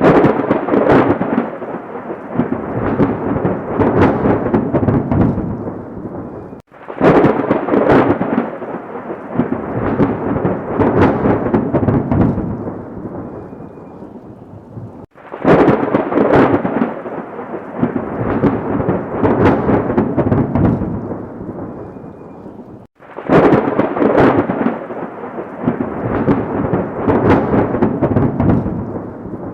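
Four thunderclaps in turn, each breaking in with a sudden loud crack and rolling away over six to eight seconds with crackling, then cutting off before the next one.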